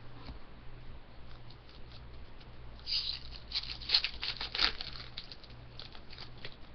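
Foil wrapper of a hockey card pack being handled and torn open, a scratchy crinkling that is busiest and loudest from about three to five seconds in.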